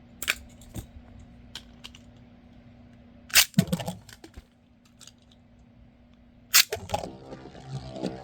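Beyblade metal spinning tops clicking and clacking, with two loud sharp knocks about three seconds apart. Music comes in near the end.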